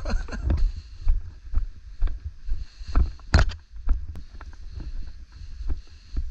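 Wind buffeting the microphone as a low rumble, with irregular knocks and scuffs that sound like footsteps and gear moving. One sharper, louder knock comes about three and a half seconds in.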